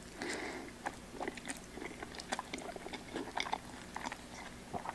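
A person chewing a mouthful of creamy carbonara pasta: faint, irregular wet mouth clicks and smacks.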